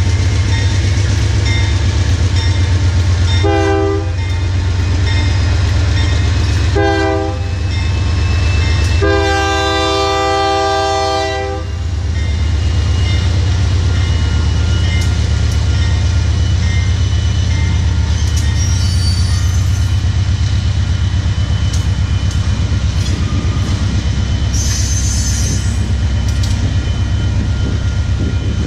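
Passing Union Pacific GE diesel locomotives running under power with a heavy steady drone, their Nathan K3HA horn sounding two short blasts and then one long blast of about two and a half seconds. Brief high squeals come in later as the cars roll by.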